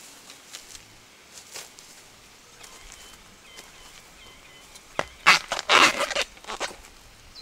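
Footsteps and rustling through ferns and undergrowth, with a few faint bird chirps. About five seconds in comes a short run of loud crunching, cracking strokes as a machete cuts into a bamboo shoot at its base.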